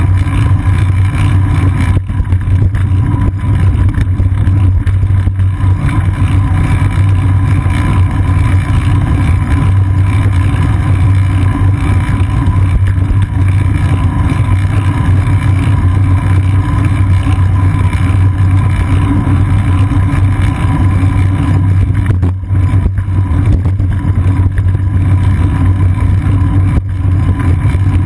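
Loud, steady rumble of wind and road vibration picked up by a seat-post-mounted GoPro Hero 2 on a moving bicycle, with a constant low drone underneath.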